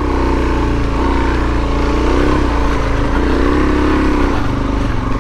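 Suzuki DRZ400S single-cylinder four-stroke dual-sport engine running under riding load, its engine speed rising and falling several times as the throttle is worked.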